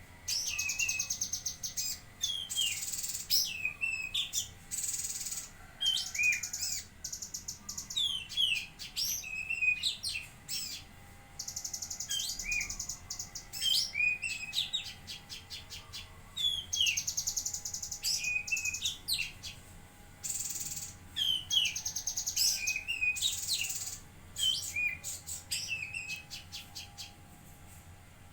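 Cucak kinoi songbird singing vigorously: bursts of fast, high chattering trills alternating with short down-slurred whistles, repeated over and over.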